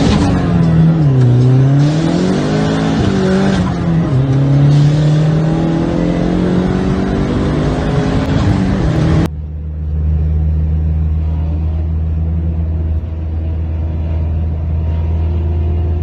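Turbocharged Chevrolet Cavalier's 2.2 Ecotec four-cylinder running hard under acceleration, heard from inside the cabin; its pitch dips and climbs again twice. At about nine seconds it cuts abruptly to a lower, steady in-car engine drone whose pitch slowly rises.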